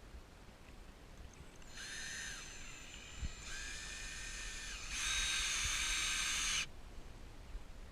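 Power drill running in three bursts, each with a steady high whine; the third is the longest and loudest.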